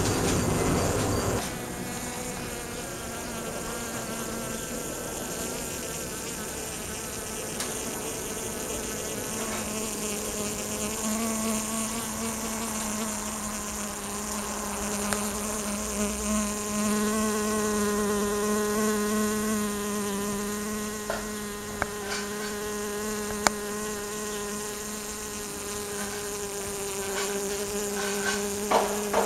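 Honeybee flying and hovering, a steady buzz from its beating wings. A louder rushing noise covers the first second or so, and a few short clicks come in the later part.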